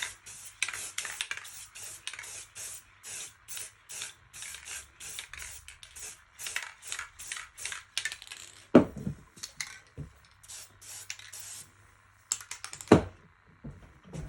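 Aerosol spray-paint can sprayed in many short, rapid hissing bursts, about two or three a second, thinning out after about eight seconds. There are two loud knocks, about 9 and 13 seconds in.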